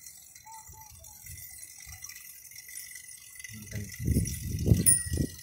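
Wind buffeting and handling noise on a phone microphone carried on a moving bicycle: a faint low rumble that swells into loud irregular rumbling about three and a half seconds in, dying away just before the end.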